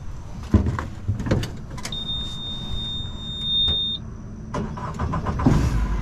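A vehicle engine running at idle, with several sharp clunks and knocks. A steady high-pitched beep sounds for about two seconds in the middle.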